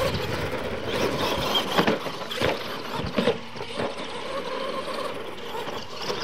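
Radio-controlled monster trucks racing on dirt: their motors running and revving and tyres scrabbling, with a few sudden thumps as they hit the ramps.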